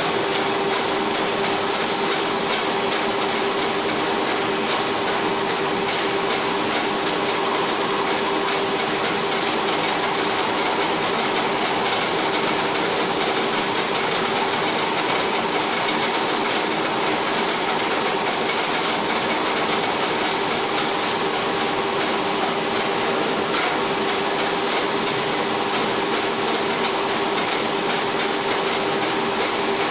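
1K62 screw-cutting lathe running steadily, its headstock gearing giving a constant mechanical noise with a steady whine held at an even pitch.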